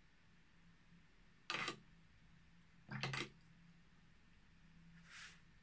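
Short clatters and rustles of a watercolour brush being worked against a paper towel on a plastic palette: two brief ones about a second and a half apart, then a fainter, lighter rustle near the end.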